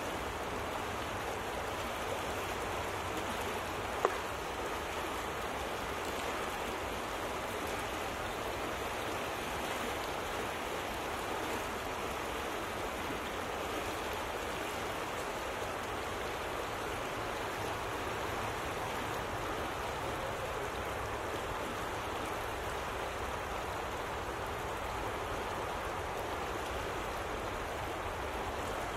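Steady rushing of moving water swirling in eddies and boils at the surface. A single short click stands out about four seconds in.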